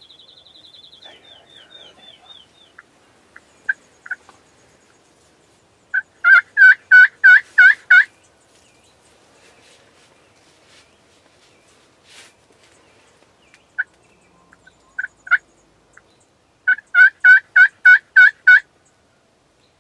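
Wild turkey tom gobbling twice, each gobble a loud rapid rattle of about seven or eight notes, the first about six seconds in and the second near the end. A few short single call notes come before and between the gobbles.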